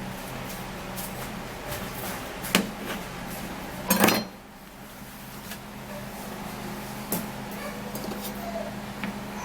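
A knife peeling a papaya, with scattered small clicks and scrapes of the blade against the fruit and dish. There is a sharp knock a little after two seconds in and a louder clatter about four seconds in, over a steady low hum.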